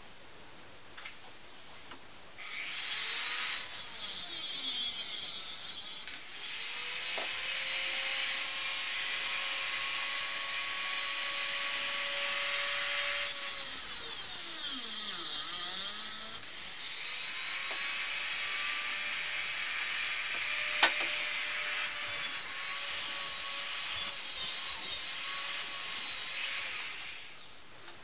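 Handheld rotary tool with a small cut-off disc, running at high speed and cutting a thin metal wire held in pliers: a high-pitched whine over grinding hiss. It slows and picks up speed again about halfway through, then winds down near the end.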